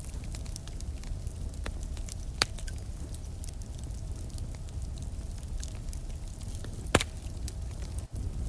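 Campfire crackling: scattered small pops over a steady low rumble, with two sharp snaps, one about two and a half seconds in and one near the end.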